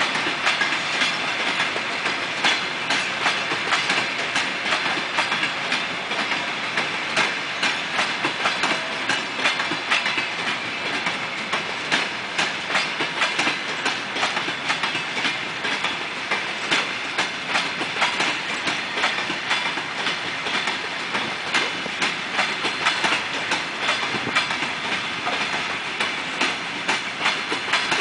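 Wheels of passenger coaches on an arriving train clattering over rail joints: a steady run of repeated clicks and knocks over the continuous rolling noise of the train passing.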